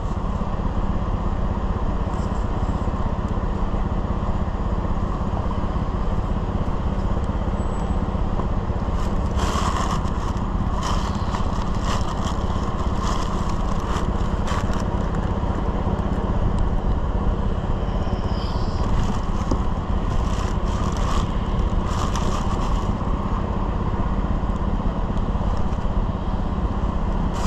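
A steady low mechanical drone, like a running engine or machine, with short bursts of crinkling tissue paper and handling noise from a sneaker box, mostly in the middle stretch.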